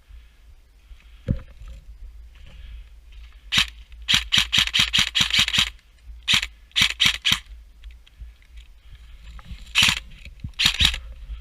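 Electric airsoft rifle (AEG) firing: a single shot about three and a half seconds in, then a short rapid burst of about eight shots a second. Spaced shots follow, and another quick run of shots comes near the end. The burst is fired to reset a gearbox that had locked halfway between semi and full auto.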